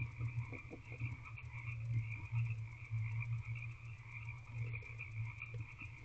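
A chorus of frogs croaking without a break: a low pulsing drone with a steady higher trill over it.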